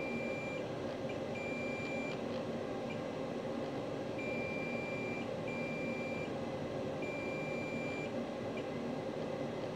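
Multimeter's continuity beeper sounding as the probe touches power rails on an iPhone 14 Pro Max logic board: five steady high-pitched beeps, each half a second to a second long, with gaps between. The beeps mark low-resistance lines, not full shorts.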